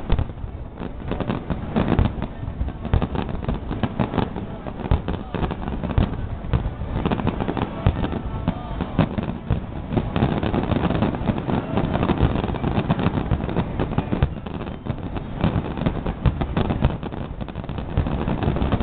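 Fireworks finale: a dense, continuous barrage of aerial shell bursts, many bangs overlapping with no pause between them.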